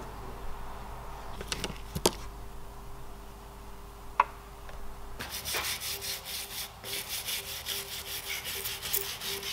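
A few sharp clinks of hand tools in a toolbox drawer as a brush is picked out. Then quick, repeated brushing strokes of a brush scrubbing dirt from the stator windings of a three-phase electric motor.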